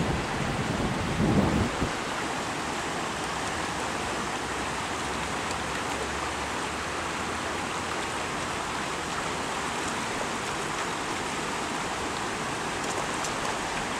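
Steady rushing of brown floodwater pouring over a road and bridge, an even noise throughout, with a brief low thump about a second and a half in.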